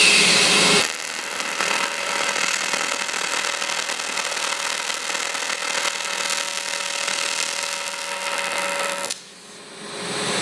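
AC TIG welding arc on aluminium plate buzzing and hissing steadily as a tack weld is made in the middle of the joint, where it takes longer to form a puddle because the heat spreads away. It opens with a brighter, louder hiss in the first second and cuts off suddenly about nine seconds in.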